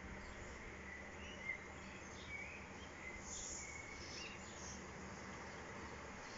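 Faint, steady outdoor background noise with a few short, high bird chirps in the first few seconds.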